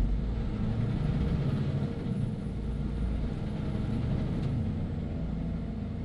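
Heavy truck's engine running steadily under way, with road noise, heard from inside the cab.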